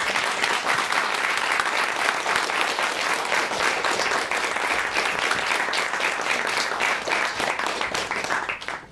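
Audience applauding, dense and steady clapping that dies away near the end.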